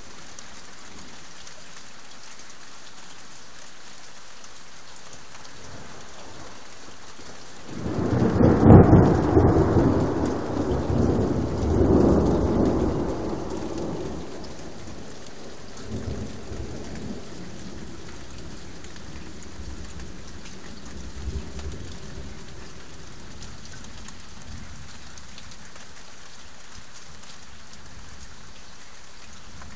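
Thunderstorm: steady rain hiss, and about eight seconds in a loud thunderclap that rumbles on for some six seconds, followed by fainter rolls of thunder.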